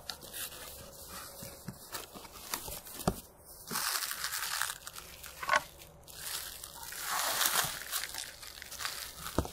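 Cardboard box and plastic and bubble-wrap packaging rustling and crinkling as wrapped parts are lifted out, in stretches, with a few sharp knocks.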